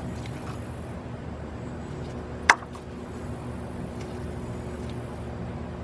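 Old diagonal cutters biting through a car's negative battery cable, with one sharp snap about two and a half seconds in as they cut through; the mechanic calls the cutters junk. A steady low hum runs underneath.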